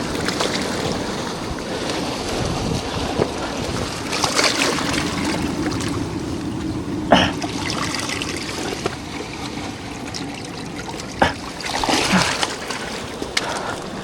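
Seawater splashing and trickling among shore rocks, with a few sharp knocks, the clearest about halfway through and two near the end.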